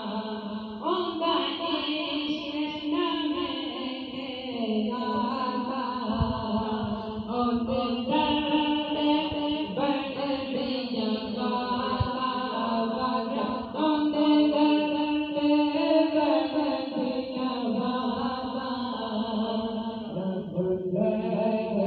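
A man's solo voice singing a naat, an Urdu devotional poem, into a microphone with long, drawn-out held notes.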